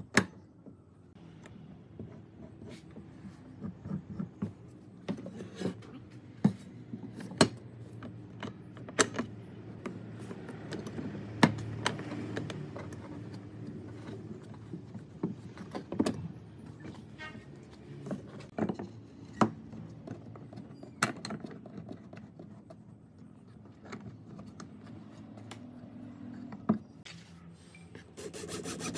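Wooden boards and corner clamps being handled on a wooden workbench: irregular knocks and clicks of wood against wood and clamp parts, about one every second or two, with rubbing and sliding in between.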